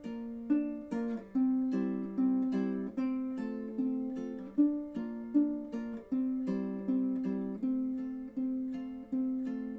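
Solo ukulele playing plucked chords in a steady rhythm, each chord ringing and fading before the next.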